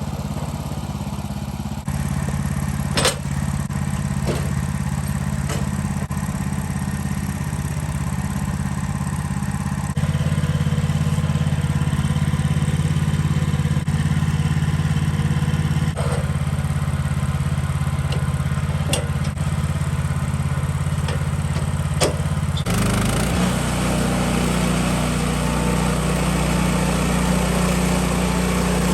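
A gasoline engine running steadily at a constant speed. Its pitch and load shift about 23 seconds in, and a few sharp clicks or knocks sound over it.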